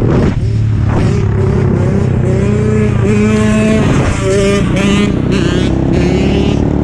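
Dirt bike engines running, their pitch wavering up and down with the throttle.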